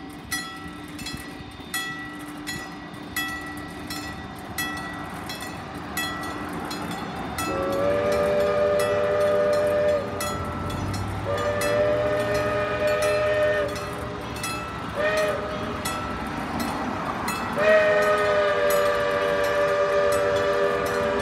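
Steam locomotive's multi-note chime whistle blowing the grade-crossing signal: two long blasts, a short one, then a final long one. Before the whistle starts, the engine's exhaust chuffs steadily, about one beat every two-thirds of a second.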